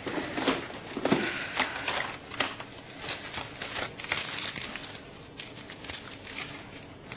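Irregular rustling, crinkling and clicking of plastic-wrapped supplies and items being rummaged through in an emergency medical case, busier in the first few seconds and sparser later.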